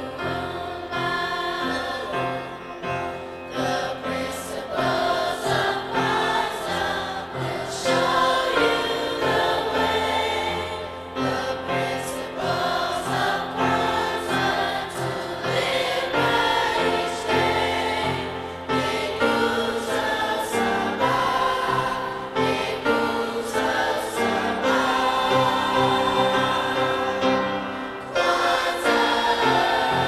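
Middle school choir singing together in parts, the many voices holding and shifting notes without a break.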